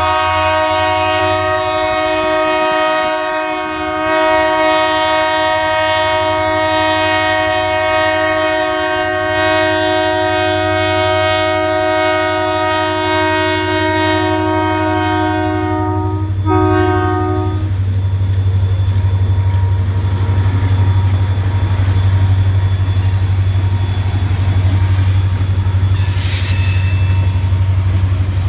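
Diesel freight locomotive's air horn sounding for a grade crossing: one long chord of about sixteen seconds, then a short blast. After that comes the steady deep hum of the locomotive and the noise of the train passing.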